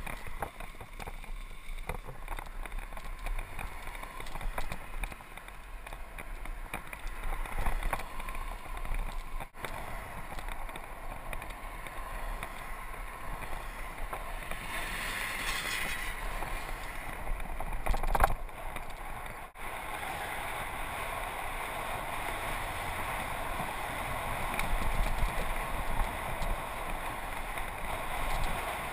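Steady rushing and rattling noise of a mountain bike being ridden along an asphalt road, picked up by a bike-mounted GoPro: tyre and wind noise, with a brief louder hiss about halfway through and one sharp knock a few seconds later.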